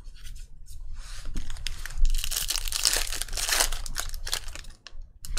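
Foil wrapper of a Panini Contenders Draft Picks basketball card pack being torn open and crinkled in the hands. A dense crackling that builds about a second in, is loudest in the middle and dies away near the end.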